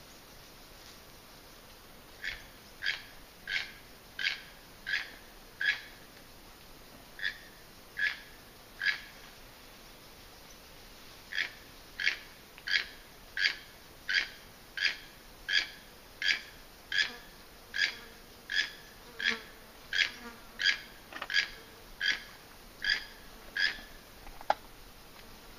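A long series of short, identical animal calls from the tree canopy, repeated evenly about once every three-quarters of a second, with two brief pauses in the first half.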